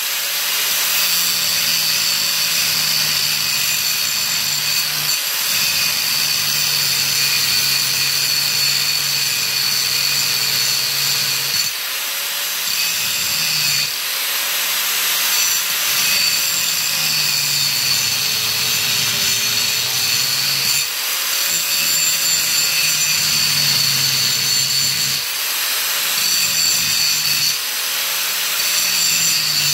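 Electric angle grinder's disc grinding through a bus seat's floor-mounting bolt, running continuously under load; its pitch sags and recovers as the disc bites, with several brief dips.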